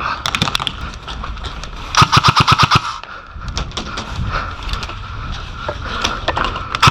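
Electric airsoft rifle firing full-auto: a short burst at the start and a longer rapid rattle about two seconds in, at roughly a dozen shots a second, with scattered fainter shots afterwards.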